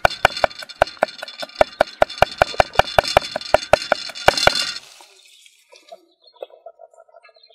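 A large knife chopping garlic on a wooden board in quick, even strokes, about five a second, stopping abruptly about two-thirds of the way through. After that, cooking oil glugs more quietly from a plastic bottle into a metal wok.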